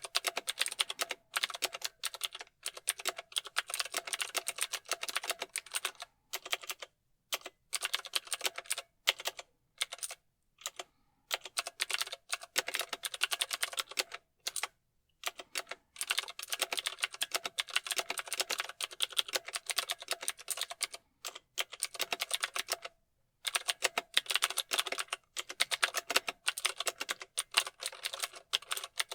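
Mechanical keyboard being typed on: rapid runs of sharp key clicks broken by short pauses.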